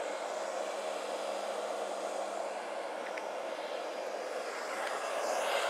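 Hair dryer running steadily, blowing air onto wet alcohol ink to push and dry it.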